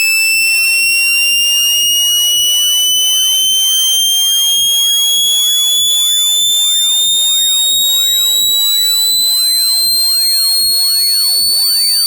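Loud synthesized speaker-cleaning tone: a single buzzy electronic tone with overtones, sliding slowly and steadily upward in pitch. It is played to make the speaker membrane vibrate and shake dust out of the grille.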